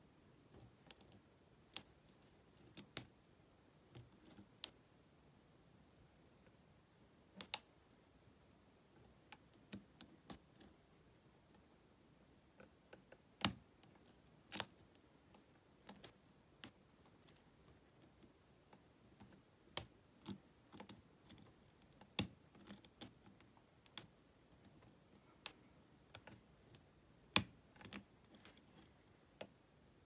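Small sharp metallic clicks of a pick and tension wrench working the pins of a Lockwood 120N brass padlock, coming irregularly, about one or two a second with short pauses between.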